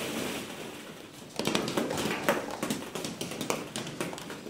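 Hollow plastic ball pit balls being tossed and bouncing, a quick irregular clatter of light taps that gets much busier about a second and a half in.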